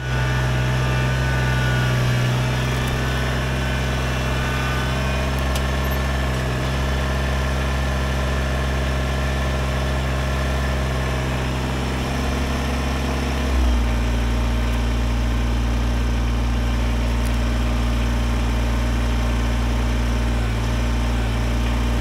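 Kubota BX23S compact tractor's three-cylinder diesel engine running steadily. A little past halfway the engine note drops slightly as it slows, then holds steady at the lower speed.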